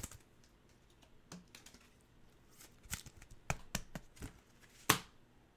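Stiff Topps Chrome baseball cards being handled and flipped through: a string of irregular light clicks and snaps of card stock, busiest in the second half, with one sharper snap near the end.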